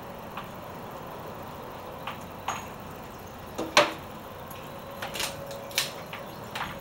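Scattered sharp metallic clicks and knocks of pistols and gear being handled on a shooting bench, about six in all, the loudest a sharp crack just under four seconds in.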